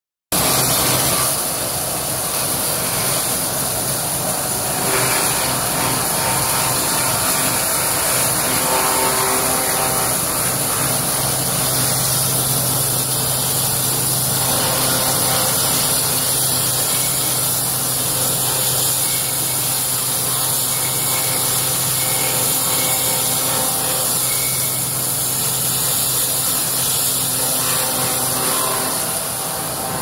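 Wood crusher (sawdust machine) running steadily while shredding wood and blowing sawdust out of its discharge chute: a loud, even rushing noise with a low hum.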